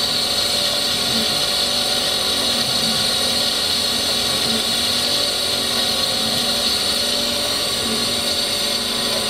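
Brown & Sharpe Micromaster 618 surface grinder running with no work under the wheel: the spindle turns the grinding wheel while the hydraulic system drives the table and cross feed, making a steady machine hum with a high hiss. The spindle runs on new bearings and new drive belts.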